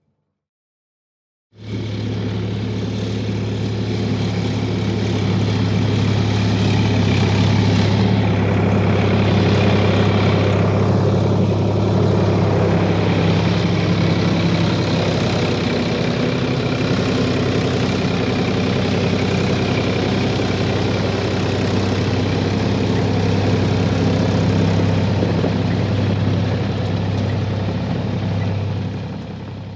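A heavy engine running steadily, a deep even hum with no change in speed. It starts suddenly after about a second and a half of silence and fades out at the end.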